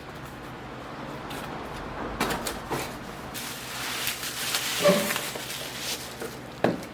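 Faint indoor handling sounds: rustling and a few light knocks, with a brief short tone about five seconds in.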